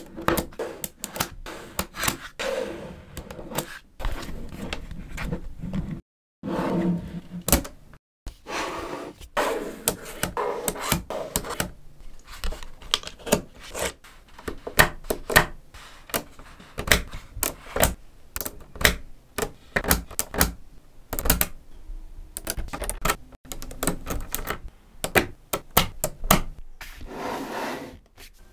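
Small neodymium magnet balls clicking and snapping together as they are pressed into place by hand, in quick, irregular clicks.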